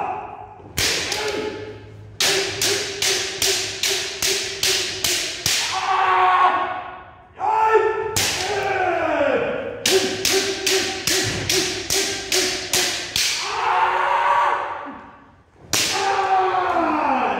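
Bamboo shinai strikes landing in two quick runs of about three a second, plus single hits, under long drawn-out kiai shouts from the kendo players.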